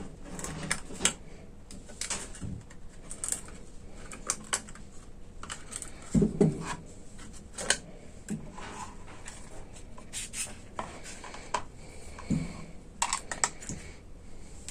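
Irregular light clicks and taps from small parts being handled on a workbench, with two duller knocks, about six seconds in and again near twelve seconds.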